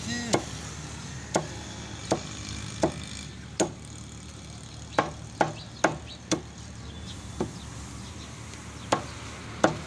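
Meat cleaver chopping chicken on a round wooden log chopping block: about a dozen sharp chops at an uneven pace, with a quick run of four in a row partway through.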